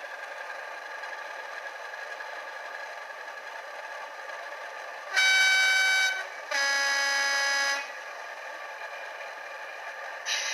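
Sound decoder of a Bachmann Class 37 model diesel locomotive, heard through its small speaker, playing a diesel engine idling, with two horn blasts about five seconds in: a shorter high tone, then a longer low tone, the Class 37's two-tone horn. A sudden hiss comes just before the end.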